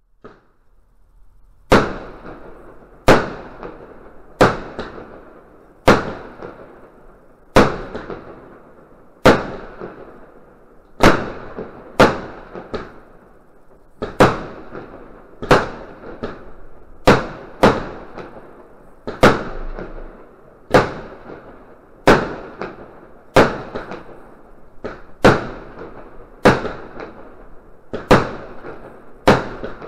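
Pyrotrade Psycho 2 consumer firework battery firing shot after shot: about twenty sharp bangs, one every second and a half or so, starting about two seconds in, each trailing off in a short fading fizz.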